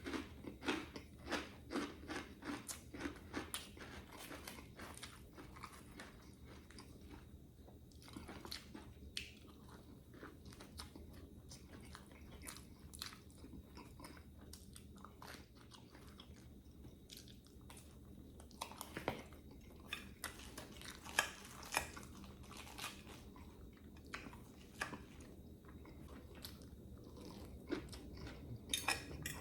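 A person chewing and biting crisp food close to the microphone, with crunching: a quick run of crunches in the first few seconds, then slower, scattered chewing with a few louder bites.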